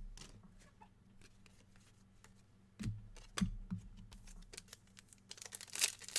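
Trading cards being handled: a few light clicks and taps, then a card pack's wrapper crinkling near the end.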